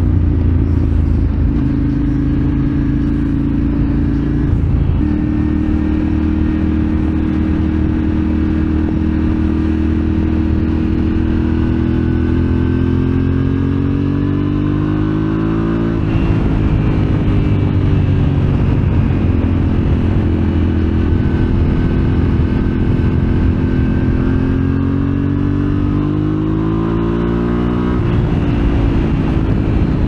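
2023 Yamaha Ténéré 700's parallel-twin engine through an Arrow slip-on exhaust, heard from the rider's seat on the move. It holds a steady note, then climbs in pitch under acceleration about halfway through and again near the end, each climb broken off sharply by a gear change.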